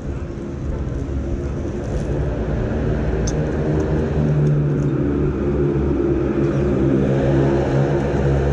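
Motor scooter engine idling steadily, an even low hum that grows a little fuller over the last few seconds.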